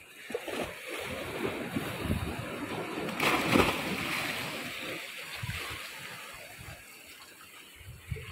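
A man jumping off the rocks into the sea, with one loud splash about three seconds in, amid sea water sloshing against the rocks.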